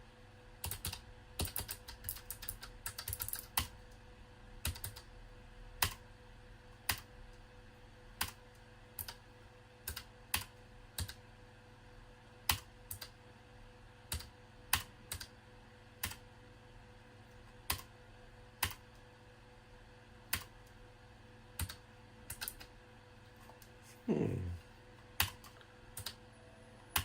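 Keystrokes on a Keychron K1 low-profile mechanical keyboard: a quick flurry of clicks, then single key presses about once a second. Near the end a short sound drops in pitch.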